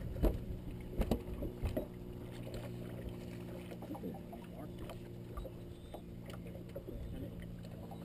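Steady low hum of a bass boat's motor, with a few sharp knocks on the deck in the first two seconds.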